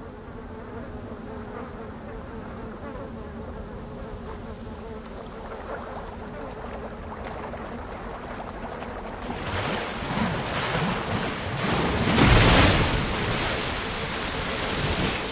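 Animated sound effect of a swarm of Saimyosho, giant demon wasps, buzzing in a steady drone. From about two-thirds of the way in, a rushing, surging noise swells over it and is loudest near the end.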